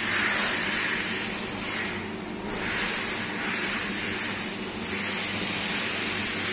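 Coolant hissing and splashing inside a CNC lathe over the machine's steady low hum; the hiss swells and fades several times.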